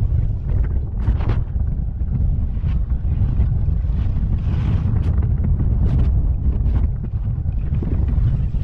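Wind buffeting the microphone at skiing speed, with the hiss and scrape of skis on hard-packed, chopped snow swelling on several turns.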